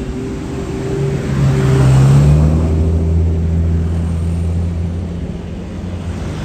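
A large tour bus's diesel engine speeding up, rising in pitch and loudness to a peak about two seconds in, then running on as a steady low drone that slowly eases off.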